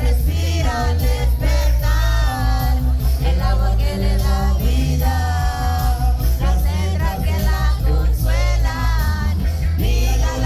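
Live concert music: a singer's voice over a loud, bass-heavy beat, as heard in the hall.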